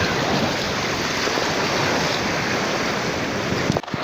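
Sea surf washing onto the shore, a steady rushing noise that breaks off abruptly near the end.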